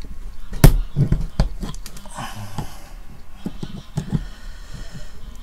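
Screwdriver clicking, tapping and scraping against a small box: a run of irregular sharp clicks and knocks, the loudest about half a second in, with a brief scrape around two seconds in.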